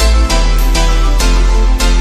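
Background music with a steady beat and heavy bass under sustained tones.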